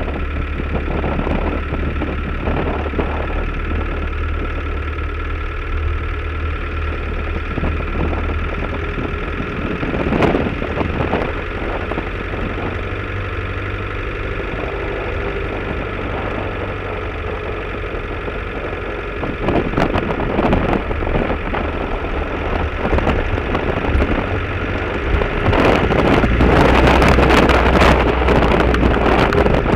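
Land Rover Defender 90 engine running as the vehicle drives along, picked up by a camera mounted outside on the wing, with a few brief knocks. Wind buffeting the microphone gets louder over the last few seconds.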